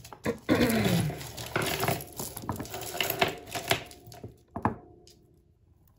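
Tangled costume jewellery rattling and clinking as a necklace is pulled out of a heap of chains and beads: a dense run of jangling clicks for the first few seconds that thins out and stops.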